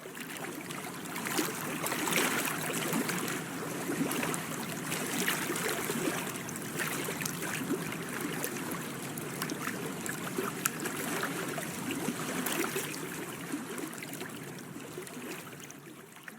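Water trickling and lapping, a steady wash dotted with small crackling splashes.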